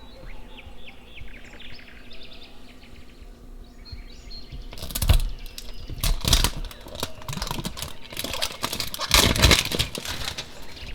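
Plastic packaging crinkling and rustling in irregular bursts from about five seconds in, as a blind-bag toy is unwrapped by hand. Faint bird chirps in the first few seconds.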